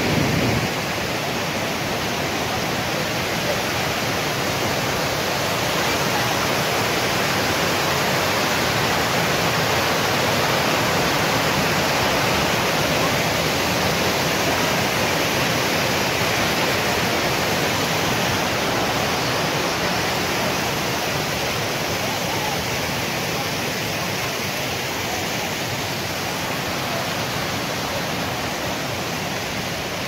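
Waterfall: a steady, loud rush of falling water.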